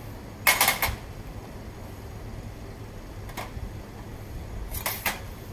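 Short clatter and knocks as cherry tomatoes are tipped from a stainless steel bowl onto a metal baking tray, loudest about half a second in, with single knocks later as tomatoes are set down by hand. A steady low hum runs underneath.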